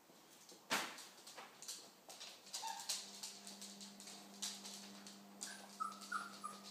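Young puppy giving a few short, high whimpering squeaks near the end, over scattered ticks and taps of small paws and claws on a hard laminate floor, with one louder knock just under a second in. A steady low hum comes in about three seconds in.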